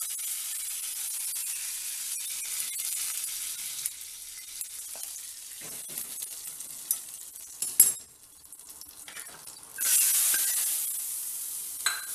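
A tempering of mustard seeds, cumin and curry leaves sizzling in hot oil in a small pan, then being scraped into a clay pot of kootu with a metal spatula. About two thirds of the way in comes one sharp knock, then a loud surge of sizzling as the hot tempering meets the wet kootu.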